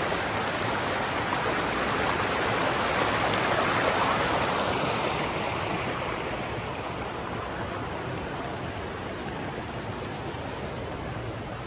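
Rushing water of a rocky stream tumbling over boulders in small cascades: a steady hiss that swells about four seconds in, then slowly fades.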